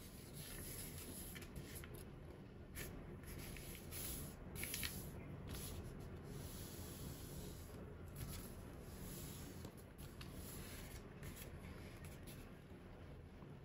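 Origami paper being folded by hand: faint, uneven rustling and rubbing as fingers slide over the paper and press creases, with a few louder strokes a few seconds in.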